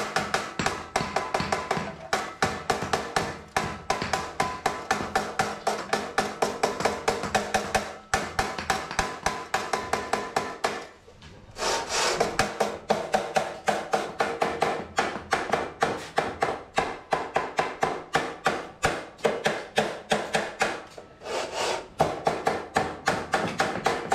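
Background music with a steady, quick beat, about four beats a second, that pauses briefly about eleven seconds in.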